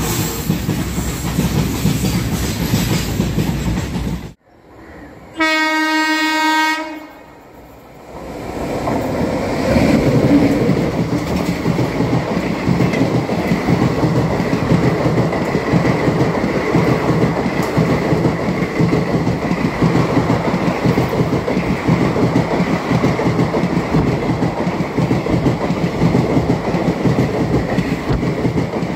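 A stretch of steady rushing noise cuts off about four seconds in; then a WAP-7 electric locomotive's horn gives one steady blast of about a second and a half. The express train then runs past close by at speed: a loud, steady rumble with the clickety-clack of wheels on the rails, swelling about ten seconds in and holding.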